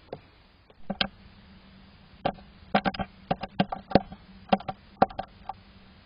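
Irregular sharp taps and knocks, a dozen or so between about one and five and a half seconds in, of a great tit on the birdhouse's wooden perch and entrance hole, over a faint steady hum.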